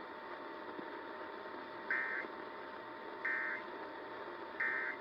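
Emergency Alert System end-of-message (EOM) data bursts: three short, buzzy digital chirps about a second and a half apart, the signal that closes an alert message. They sit over a faint, steady hiss.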